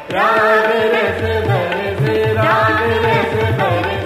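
Indian classical music: a melody of held notes with gliding pitch, over a steady tabla rhythm. The music drops out for a moment at the start, then a new phrase comes in.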